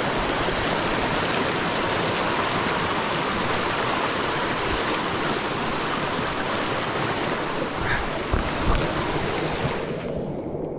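Steady rush of running water from a brook, with heavy rain coming down.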